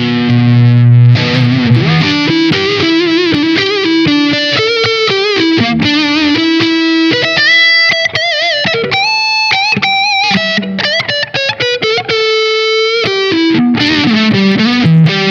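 SQOE SETL980 T-style electric guitar with a humbucker and single-coil pickup set, played with overdrive: single-note lead lines with vibrato and string bends, a long sustained note about twelve seconds in, then lower riffing near the end.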